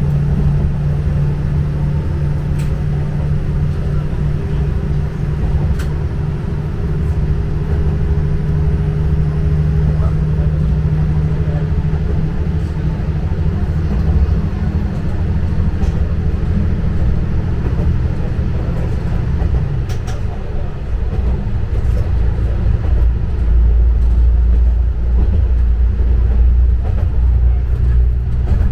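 Hokujo Railway diesel railcar running along the line. Its engine drone holds steady, then drops in pitch about twenty seconds in. After that, a heavier low rumble from the wheels and track takes over.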